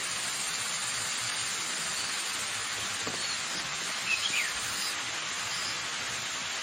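Steady rush of a waterfall, with a few short bird chirps standing out over it: quick falling notes about three to four seconds in.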